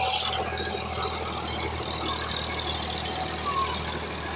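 Farm tractor's diesel engine running steadily under load as it pulls a rotary tiller through the field soil.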